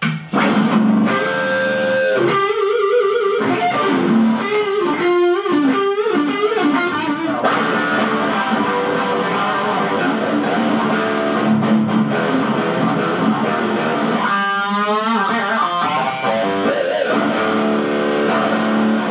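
Amplified electric guitar, a white LTD single-cut fitted with new Strike-model pickups, played solo: picked riffs, runs and chords. Three quarters of the way through comes a bent, wavering note.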